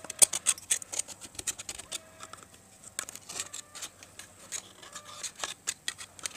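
A small metal tool scraping, clicking and prying at the torn rim of an old rusted steel fuel filter casing: a quick, irregular run of sharp clicks and scrapes.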